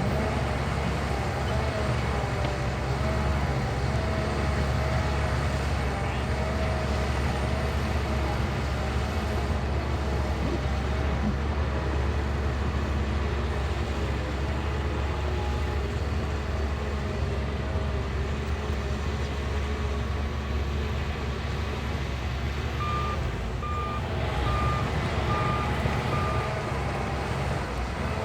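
Diesel engine of a Shantui bulldozer running steadily under working load. Near the end a reversing alarm beeps about five times.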